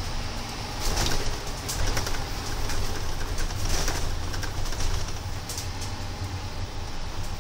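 Inside a moving double-decker bus: the engine and road give a steady low rumble, with rattles from the body and windows, louder about a second in and again near four seconds.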